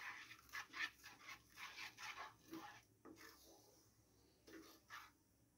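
Wooden spatula stirring and scraping orange pulp and sugar cooking in a pan: a quick run of faint strokes, then a few slower ones near the end.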